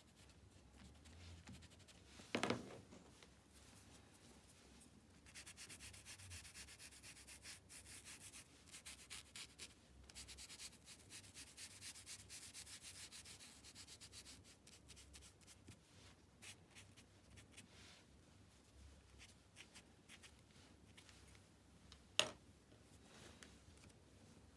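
Brush scrubbing charcoal into paper: faint, rapid, scratchy strokes through the middle of the stretch. A sharp knock comes early on, and a louder one comes near the end.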